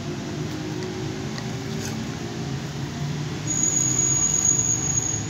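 A steady low background hum. About three and a half seconds in, a high, thin, unwavering whistle joins it for under two seconds and then stops.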